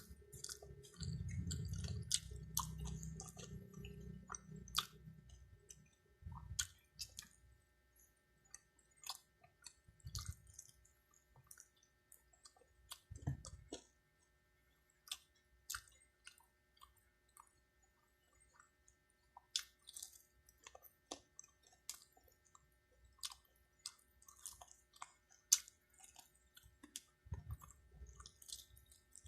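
Faint close-miked eating of chicken curry and fried chicken: wet chewing and lip-smacking with many short, irregular mouth clicks, and a few low thuds.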